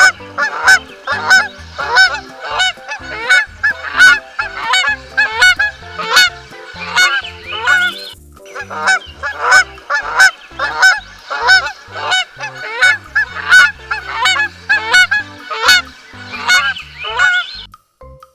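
Goose honking in a quick, steady series of short harsh calls, about two a second, with one brief break about eight seconds in and stopping just before the end.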